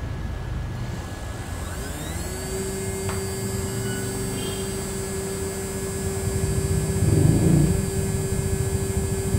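A CNC router's spindle motor spins up about two seconds in, its whine rising and then holding steady at one pitch. About seven seconds in, louder rough mechanical noise joins it.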